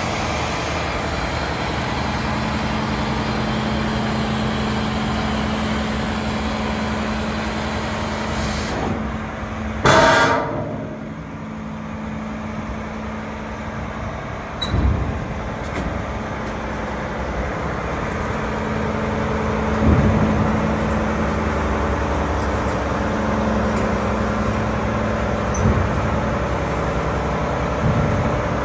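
Mack MRU613 garbage truck's diesel engine running steadily with a constant low hum. About ten seconds in there is a short loud blast, and a few lighter knocks follow later.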